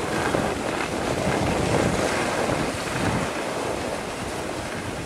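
Wind buffeting the microphone: a steady rushing noise with irregular low rumbling.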